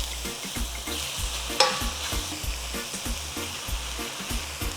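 Chopped chicken thigh pieces sizzling in hot oil with onions in a pan, with one sharp clack about one and a half seconds in.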